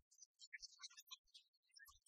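Near silence, with only faint scattered crackle.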